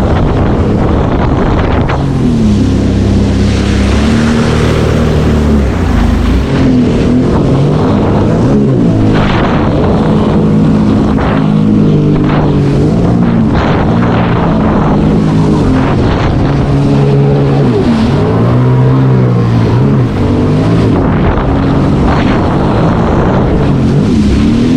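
Sea-Doo personal watercraft engine running under way, its pitch rising and falling again and again as the throttle is worked, with wind buffeting the microphone.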